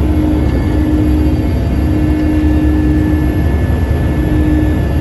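Aircraft engine noise heard from inside the cabin: a steady deep rumble with a constant high whine, and a hum that cuts in and out.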